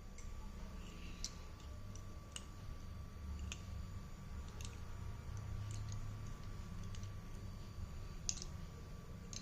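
Scattered light clicks and taps, about ten of them at uneven intervals with the loudest near the end: slate pencils knocking against each other as they are handled. A low steady hum runs underneath.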